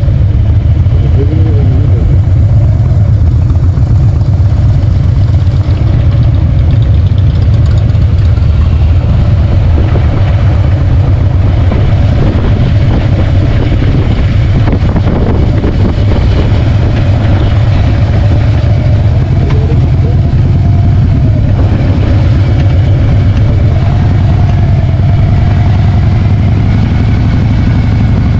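Harley-Davidson motorcycle engine running steadily while riding on the highway: a constant low rumble at an even, loud level.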